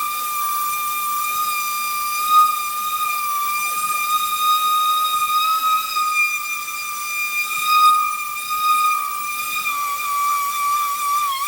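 Handheld power sanding tool running at a steady high whine, sanding paint off a steel air tank. Its pitch wavers and sags slightly near the end as the disc is pressed on harder.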